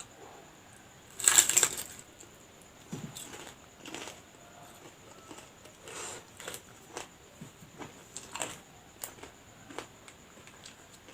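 A loud crunchy bite into a lumpia (spring roll) about a second in, followed by smaller, irregular crunching and chewing sounds.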